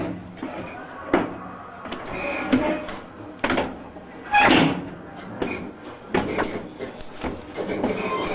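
Clunks and knocks of doors sliding and banging in a railway passenger carriage, several separate strikes with the loudest about four and a half seconds in.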